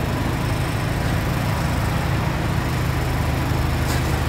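Forklift engine idling steadily, a low even hum, with a light click near the end.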